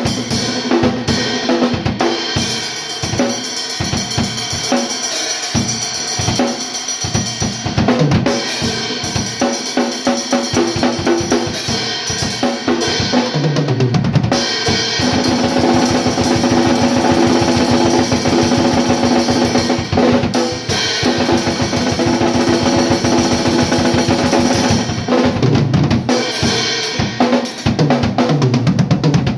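Acoustic drum kit played solo: tresillo grooves in 6/8 on bass drum, snare and cymbals. From about halfway it breaks into a fast gravity blast beat, a continuous rapid roll of snare strokes over kick and cymbals. Tom fills run down in pitch in between.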